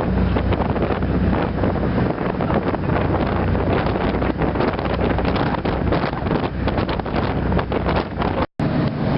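Wind buffeting the microphone on a moving boat, over the steady low drone of the boat's engine. The sound drops out briefly near the end and comes back with a slightly different hum.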